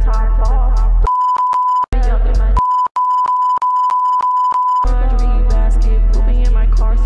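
Rap song with heavy bass, cut out twice by a steady high-pitched censor bleep that blanks the lyrics: briefly about a second in, then for about two seconds just after, before the song comes back.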